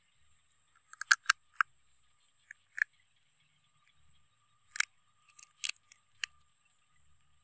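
Cooked crab shell cracking and snapping as it is broken apart by hand: a run of sharp clicks, one cluster about a second in and another from about five seconds in.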